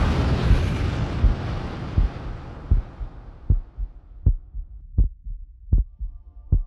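Slow, even low thumps like a heartbeat, about one every three quarters of a second, while a loud rushing noise fades away over the first three seconds.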